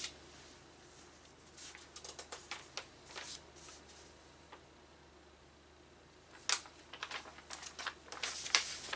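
Paper being handled and rustled, in two spells of short crinkling bursts: one from about one and a half to four seconds in, and one from about six and a half seconds to the end, with a quieter stretch between.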